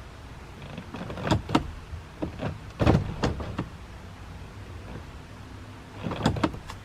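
Sharp clicks and clunks of controls being worked in a pickup truck cab, in three bunches: about a second in, a longer run around three seconds, and one near the end. The loudest knock comes just before three seconds, over a low steady hum.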